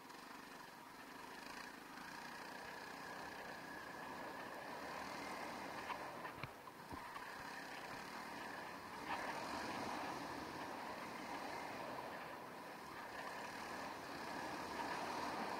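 Honda CRF300L Rally's single-cylinder four-stroke engine running as the bike is ridden, growing gradually louder, with a few sharp knocks about six to nine seconds in.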